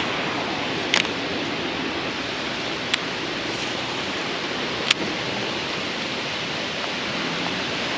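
Steady rain falling on the water and the kayak, an even hiss, with a few sharp ticks of drops striking close by.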